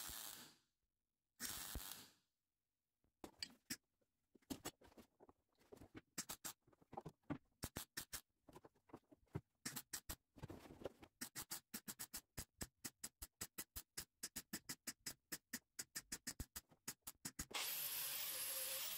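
MIG welder laying short stitch welds over the end of a crack in thin, rusty car-body sheet metal: crackling bursts that start irregular and settle into a steady run of about four a second. Near the end an angle grinder starts, grinding the weld with a steady hiss.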